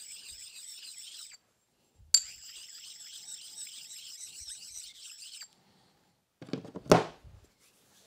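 A sharpening stone rubbed back and forth across the steel ring gear of a 5C collet chuck, stoning off burrs, with a high scraping hiss in two long passes. A sharp clunk comes about seven seconds in.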